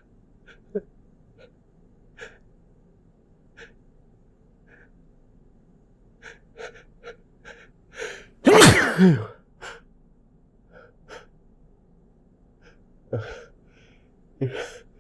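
A man's sneeze building up: short catching in-breaths come more and more often, then a sharp gasp just past halfway, then one loud sneeze that breaks through his attempt to hold it back into tissues. A few more gasping breaths follow near the end.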